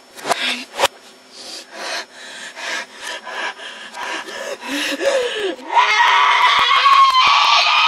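Audio played backwards: a few sharp clicks and a run of rasping, breathy noises, then from about six seconds in a loud, high-pitched wavering scream, also reversed.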